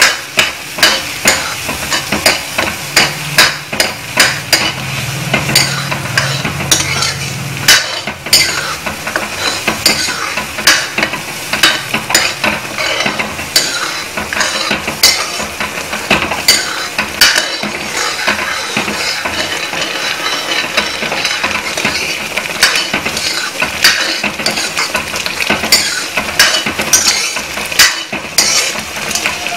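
Steel ladle stirring semolina into boiling water in a metal kadai, clinking and scraping against the pan again and again, over the steady hiss and bubbling of the boiling mixture.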